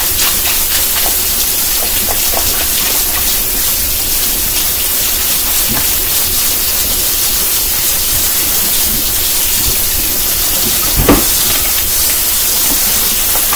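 Kitchen tap water running steadily onto chicken wings in a strainer as they are rinsed. A single thump about eleven seconds in.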